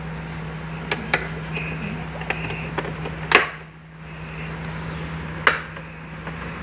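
Plastic trim pieces of a Fiat Cronos door panel being pressed and snapped into their clip mounts: a few light clicks, then two louder snaps a couple of seconds apart, over a steady background hum.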